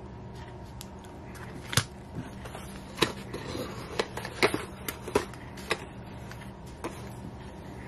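A person chewing a bite of cherry mini pie, with about seven sharp, crisp clicks and smacks of the mouth and crust spread irregularly through the chewing.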